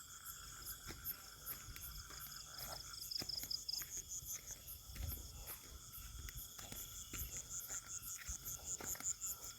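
A chorus of insects calling: several high, steady, rapidly pulsing trills overlap, with scattered soft knocks and handling sounds.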